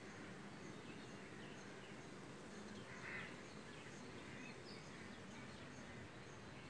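Faint outdoor ambience: a steady low hiss with a thin, high chirp repeating about every half second, and one brief louder noise about three seconds in.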